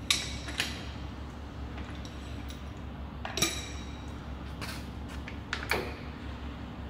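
Sharp metallic clinks with a brief ring, about five in all, as a chuck key is worked into the steel jaws of a large lathe chuck. The loudest come right at the start and about three and a half seconds in, over a steady low hum.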